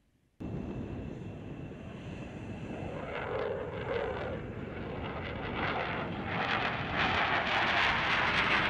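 Jet engines of an F/A-18D Hornet taking off and climbing away: a steady roar that grows louder through the clip.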